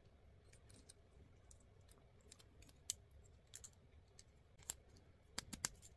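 Faint, scattered clicks and taps of small plastic parts as the shield and its mount are handled and fitted onto a small Mobility Joint Gundam figure's arm, with a quick run of clicks near the end.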